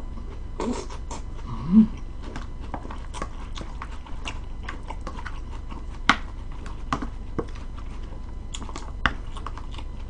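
Sharp clicks and scrapes of a utensil tossing sprout-and-salmon salad in a glass bowl, mixed with chewing, over a steady low hum. A short hummed 'mm' rising in pitch comes just before two seconds in.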